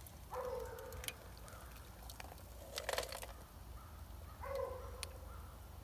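Molten lead and char pouring from a burnt tin can held in pliers into a lead melting pot, with a few sharp metal clicks and a short rattle about three seconds in. A short, high, steady call sounds twice in the background, near the start and near the end.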